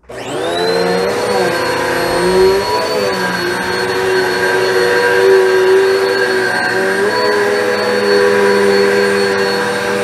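Philco Up Right 2000 W upright vacuum cleaner switched on, its motor spinning up to a steady whine within about half a second, then running while pushed over carpet. The pitch dips briefly three times as it is moved.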